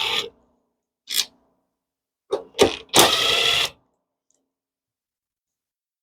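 Socket ratchet clicking in quick runs while backing out the small bolts that hold the air cleaner assembly to the carburetor: a few separate clicks, then a faster run of clicks for under a second.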